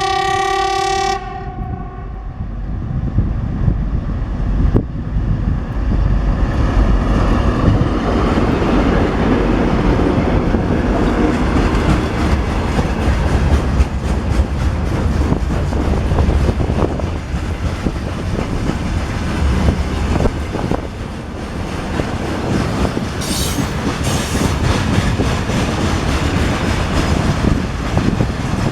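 A Russian diesel locomotive gives a short horn blast right at the start. Its train then rolls past with a steady engine rumble and wheels clattering over the rail joints.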